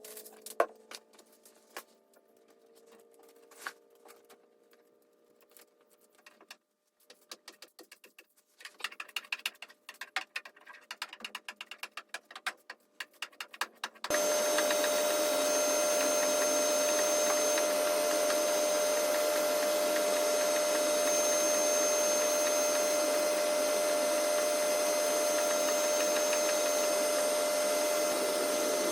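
Scattered light clicks and taps of hand work. About halfway through, a small electric motor suddenly starts and runs steadily, with a constant whine.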